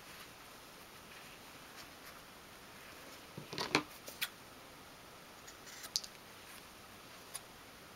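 Scissors trimming loose threads from a small piece of hemmed fabric: a few short, separate snips and clicks, the loudest a little before halfway.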